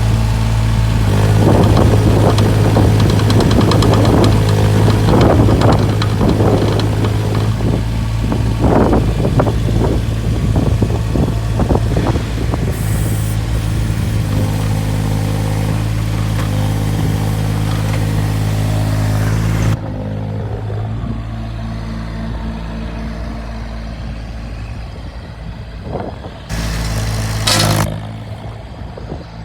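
JCB 8008 micro excavator's small diesel engine running steadily, with irregular clanks and knocks from the machine working during the first half. About twenty seconds in the sound drops and turns duller, and a short louder burst comes near the end.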